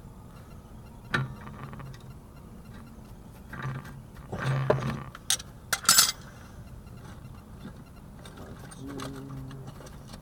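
Metal hand tools clinking and knocking against each other and on the tie rod end: a few scattered sharp clanks, the sharpest about five and six seconds in, over a low steady hum.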